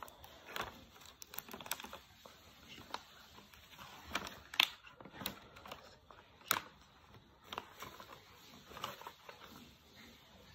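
Sheets of paper being handled, folded and creased by hand: scattered soft rustles and taps, with two sharper taps about four and a half and six and a half seconds in.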